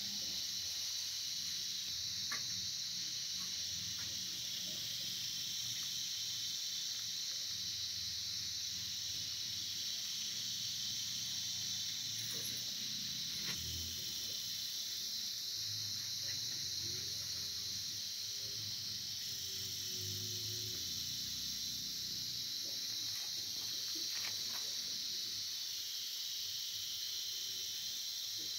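Steady high-pitched chirring of insects, with a few faint clicks.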